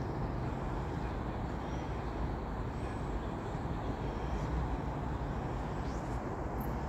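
Steady low rumble of outdoor background noise, with no single clear source.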